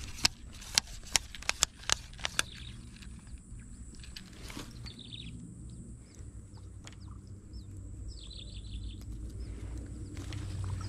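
A quick series of sharp clicks and taps from handling the fishing pole and hook in the first two and a half seconds. Then scattered short high chirps of birds, one a rapid trill, over a steady low outdoor rumble.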